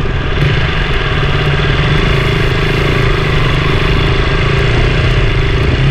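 KTM 200 Duke's single-cylinder engine running steadily as the motorcycle rides along a dirt track, heard close up with rough road noise.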